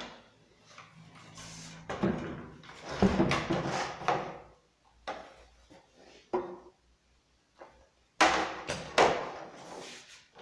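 Clunks, knocks and scraping of a Husqvarna 390XP chainsaw and its plastic bar scabbard being handled and set down on a wooden workbench, with two sharp knocks about eight and nine seconds in.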